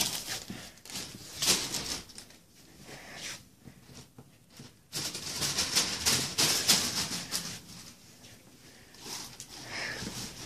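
Footsteps and rustling, an irregular run of taps and patter, louder near the start and again from about five to seven seconds in, with a quieter stretch between.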